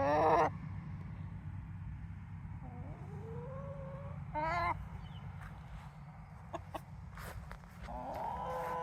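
Backyard chickens clucking, with a few short separate calls and a longer held call starting near the end, over a steady low hum.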